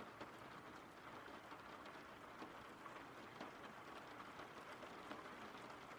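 Faint steady rain, a background rain-sound recording, with scattered small drop ticks.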